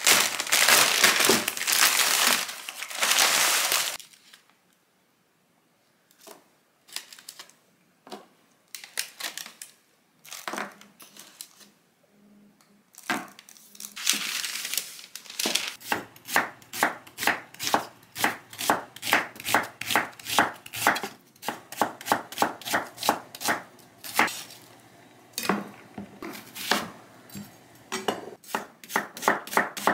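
Plastic packaging and baking paper crinkling loudly for a few seconds, with a brief crinkle again midway. In the second half, a chef's knife slices an onion on a wooden cutting board, knocking on the board about two to three times a second.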